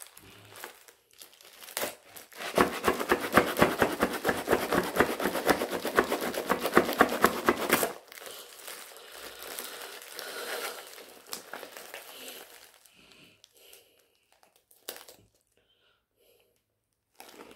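Plastic bag packaging crinkling as it is handled and pulled at, loud and dense for about five seconds from a couple of seconds in, then softer, scattered rustles that die away, with a few short rustles near the end.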